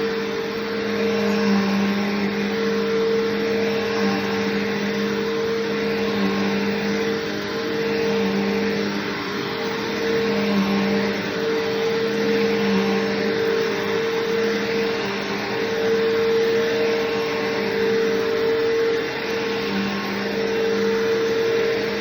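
Bissell PowerForce Bagged upright vacuum (model 3522-5) running steadily: a motor hum with two held tones, one low and one higher, over a rushing of air, its level rising and falling a little.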